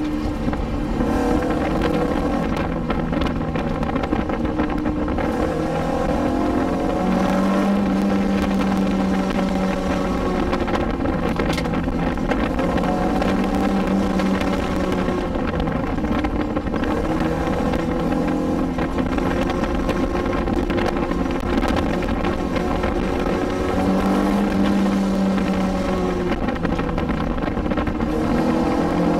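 Cabin sound of a 1986 Toyota MR2 MK1's mid-mounted 1.6 L 20-valve 4A-GE four-cylinder with individual throttle bodies, under way on a twisting downhill road. The engine's pitch rises and falls repeatedly as it revs up and eases off.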